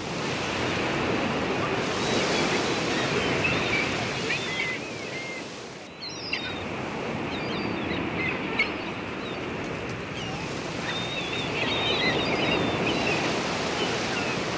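Small waves breaking and washing up on a sandy beach: a steady surf rush that swells and eases, dipping briefly about six seconds in.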